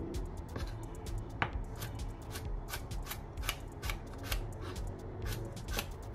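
Chef's knife slicing a carrot into thin strips on a wooden cutting board: a quick, uneven series of sharp knocks, about three a second.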